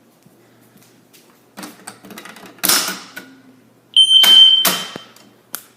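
Fire alarm sounder set to 3,000 Hz gives one short, loud, high steady tone of about a second, about four seconds in; this is the brief sounding of a device under a system walk test. A few clicks and rustles of handling come before it.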